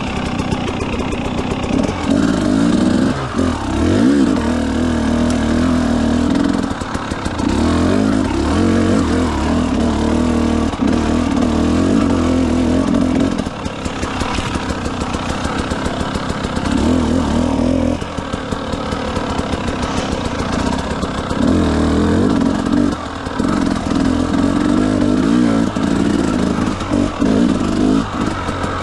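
Trail motorcycle engine running under changing throttle: the engine note holds strong for several seconds at a time, then briefly drops off and swings in pitch before picking up again, as when riding on and off the throttle.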